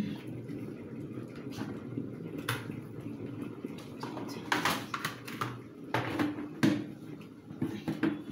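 Light clicks and knocks of kitchen utensils and containers being handled, a few scattered through the middle, over a steady low background noise.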